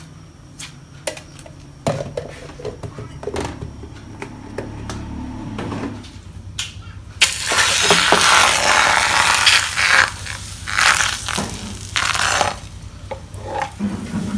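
Beaten egg poured into a hot non-stick frying pan, sizzling loudly from about halfway through. After a few seconds the sizzle comes and goes as the pan is lifted and tilted over a gas burner to spread a thin egg sheet. Before the sizzle there are scattered light clinks and knocks of kitchenware.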